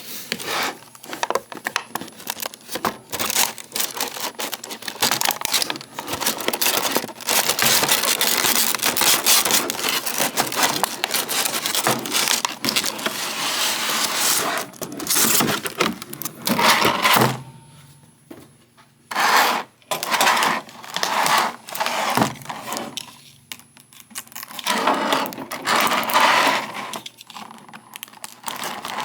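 Packaging being handled while a boxed figure is unpacked: cardboard and plastic rustling and crinkling, with scrapes and small knocks. It is busiest in the middle, then comes in shorter bursts with brief pauses.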